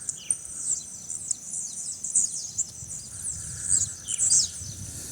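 Several birds chirping in quick high notes that slide downward, over a steady high-pitched insect trill.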